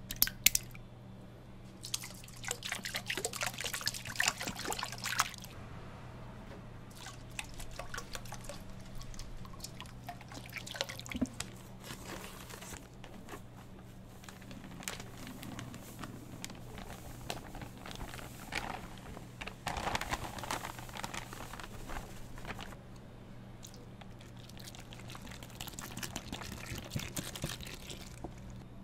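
Corn dog batter ingredients poured into a stainless steel mixing bowl: cracked eggs slide in from a small bowl, then liquids are poured in, splashing and dripping in several spells, finally onto a dry batter mix. A low steady hum runs underneath.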